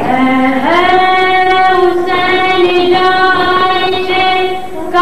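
A boy singing a noha lament: one long held note that steps up in pitch about half a second in and breaks off near the end before the next phrase begins.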